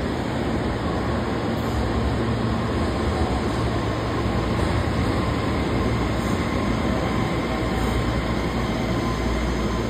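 Kobe Municipal Subway 6000-series train running into an underground station platform and slowing as it arrives. Its wheels and running gear make a steady rumble, with a faint steady whine over it from about a second in, in a reverberant station box.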